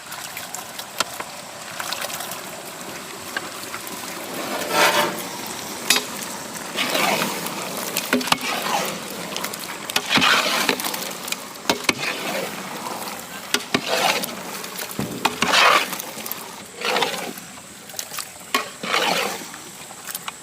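Curd-marinated quail being stirred into a pot of masala with a large ladle: wet, sloshing, scraping strokes every couple of seconds over a steady hiss of cooking.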